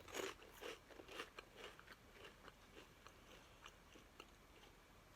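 A person chewing crunchy Japanese fish-shaped crackers, a run of close crunches that is busiest in the first couple of seconds and then thins to occasional softer crunches.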